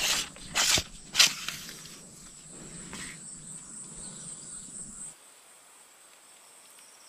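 Insects, likely crickets, droning steadily on one high note, with three sharp rustling knocks of handling in the first second and a half; the drone and background stop abruptly about five seconds in, leaving only faint outdoor hiss.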